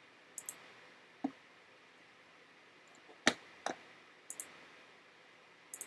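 Scattered sharp clicks from computer controls, about eight in all, several in quick pairs, over faint room hiss.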